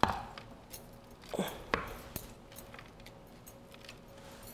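Wooden spoon knocking and scraping against a glass mixing bowl while crumb topping is pushed out onto fish fillets in a metal baking pan: one sharp knock at the start, a couple more about a second and a half in, then faint scrapes and clicks.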